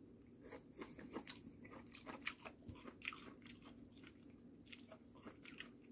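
A person chewing a mouthful of seasoned pumpkin-seed sprout namul, with faint, irregular crisp crunches a few times a second.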